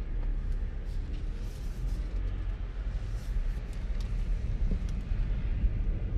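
2021 Dodge Durango GT's 3.6-litre V6 and road noise heard from inside the cabin as the SUV drives off slowly, a steady low rumble.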